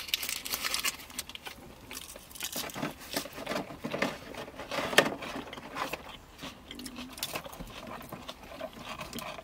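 Close-miked eating: chewing and crunching of a crispy chicken burger and salad, with irregular small clicks and crackles from a fork in a paperboard box and the burger's paper wrapper. The sharpest click comes about halfway through.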